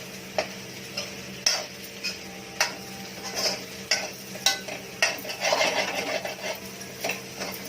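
A spatula stirring potatoes and pav bhaji masala on a tawa, with sharp clicks and scrapes of the spatula against the pan about every half second to second.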